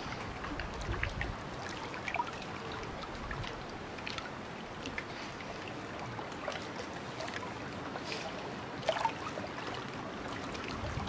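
Steady, faint outdoor background noise with scattered small clicks and scuffs, a couple of them louder about nine seconds in.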